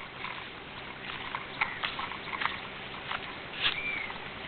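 Scattered short bird chirps and calls, one longer curving call near the end, over a faint steady low hum.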